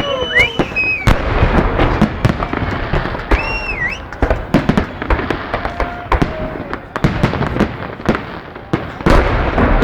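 Fireworks salute going off: a rapid run of bangs and dense crackling, with heavier bursts about a second in and near the end, and a brief whistle that rises and falls midway.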